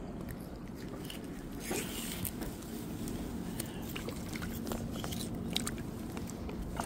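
Scattered small clicks and handling noises as a bluegill is threaded onto a rope stringer and lowered into the water, over a steady low outdoor background.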